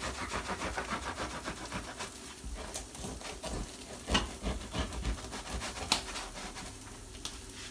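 A knife sawing through a loaf of bread with repeated rasping strokes, with a few sharper knocks of the blade on the board around the middle.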